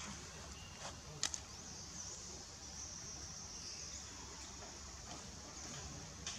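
Outdoor insect chorus, a steady high-pitched chirring, with a short sharp click about a second in.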